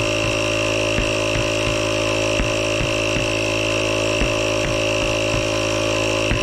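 Air compressor running steadily while inflating a car tire, with light clicks every half second to a second.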